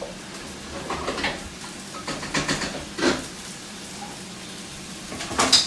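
Cookware clattering and scraping at the stove as food is stirred in a frying pan, with a steady sizzle of frying underneath. Several short knocks and scrapes; the loudest comes near the end.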